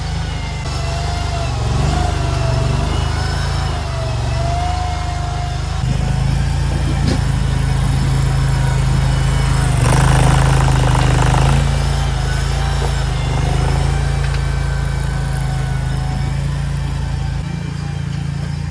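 Chinese JQ400 mini skid steer's engine running steadily under load, with a higher whine that wavers up and down in pitch as it works. About ten seconds in there is a louder rush of noise lasting a second or two.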